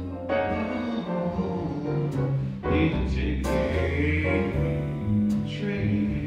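Live jazz band playing: piano, walking double bass and drums with cymbal strikes, under a wordless lead line from the front man at the microphone.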